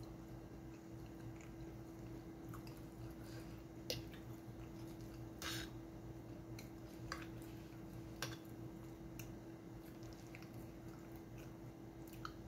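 Quiet chewing and slurping of spaghetti, with a few short clicks of a fork against the metal frying pan, over a steady low hum.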